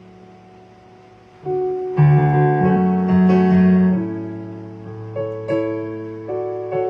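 Piano played slowly in chords: a held chord fades away, then about a second and a half in new chords are struck, loudest between two and four seconds in, and further chords follow at an unhurried pace.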